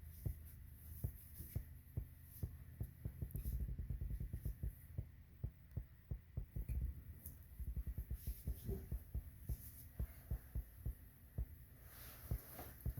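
Irregular light clicks and low knocks of hand tools and metal parts being worked as a shower valve stem is tightened down.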